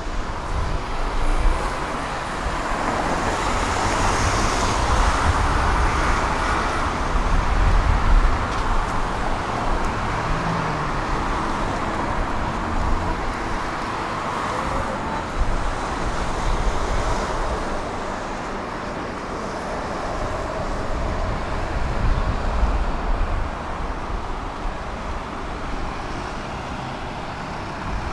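Road traffic on a city street: a steady wash of car tyre and engine noise that swells as vehicles pass, loudest a few seconds in.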